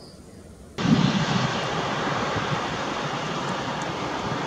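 Jet airliner engines running: a steady noise with a low rumble that cuts in abruptly just under a second in, after faint background sound.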